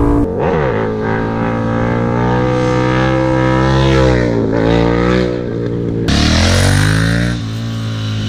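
KTM 1290 Super Duke R V-twin accelerating hard, its revs climbing and then dropping back at each gear change, several times over.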